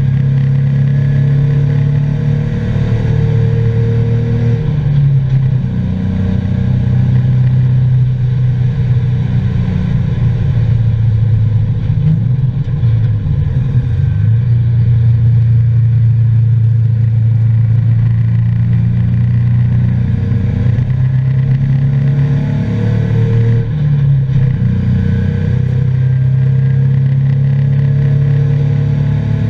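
2003 Nissan 350Z's 3.5-litre V6 engine running hard at racing speed, heard from inside the cabin. The engine note rises and falls several times.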